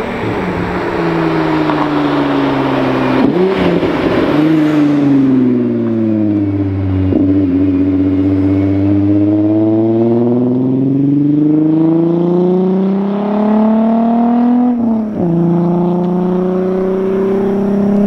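12-valve VR6 engine and its loud, near-open exhaust under a hard pull. The revs fall for the first several seconds, then climb steadily, dip sharply about 15 seconds in as it shifts up a gear, and climb again.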